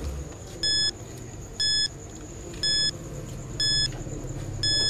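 Countdown timer sound effect: five short electronic beeps, one a second, marking the seconds left to answer.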